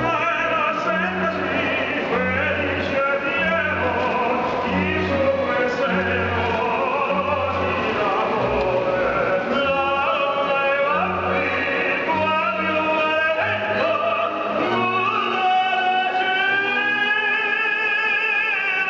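Amplified operatic male tenor singing over instrumental accompaniment with a low, repeating bass part; in the last few seconds the voice holds long notes with vibrato.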